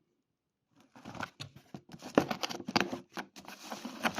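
Staple gun accessories and packaging being handled: irregular clicks, taps and light rustling, starting about a second in.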